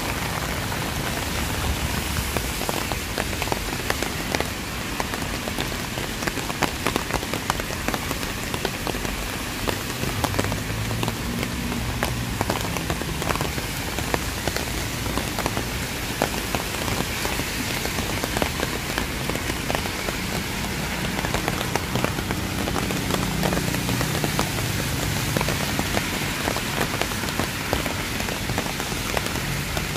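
Steady rain falling, with many individual drops ticking sharply close by. A low rumble swells twice, around ten seconds in and again past twenty seconds.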